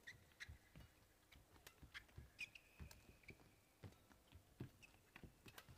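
Badminton rally: sharp clicks of rackets striking the shuttlecock, thuds of footfalls and short squeaks of shoes on the court mat, with the loudest squeak about two and a half seconds in.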